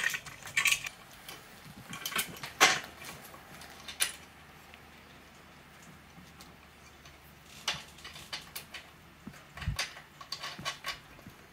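Scattered metallic clinks, taps and light knocks as a chrome side-mount licence-plate bracket is handled and fitted by hand against the rear axle hardware of a Harley-Davidson Sportster, with one duller knock near the end.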